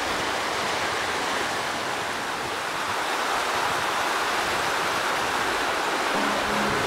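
Small mountain river rushing and splashing over a rocky step, a steady hiss of running water. About six seconds in, music with held tones starts to come in.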